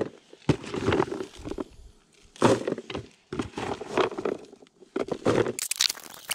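Handfuls of boilies being scooped and dropped into a bait bucket, the hard bait balls clattering against each other and the bucket again and again.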